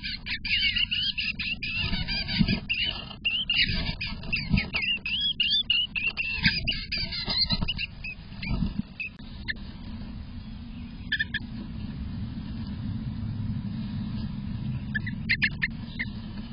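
Songbird warbling in quick, wavering phrases over sharp scratching and rustling from a bird moving in the grass nest inside a nest box. After about eight seconds the song stops, leaving a few short chirps over a low rumble.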